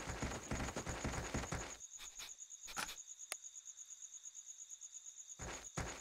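Night ambience of crickets: a steady, finely pulsed high trill. Running footsteps rustle through undergrowth in the first two seconds, followed by a few single steps.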